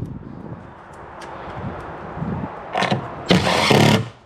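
Cordless drill/driver with a 10 mm socket running in two short bursts near the end, driving a taillight housing bolt back in.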